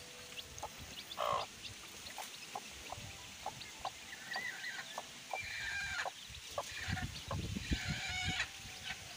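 Domestic hen clucking among her young chicks, which peep in many short high calls, thickest in the second half; one louder cluck comes about a second in.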